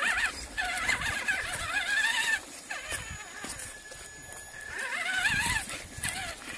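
Traxxas Rustler XL-5 RC truck's brushed electric motor whining under throttle, its pitch wavering up and down in two spells: one of about two seconds at the start, and a shorter one about five seconds in. Tyre noise rumbles on the dirt beneath it.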